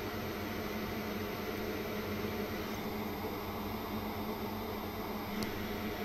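Steady electrical hum and fan whir from a running SMD board preheater, with one faint click near the end.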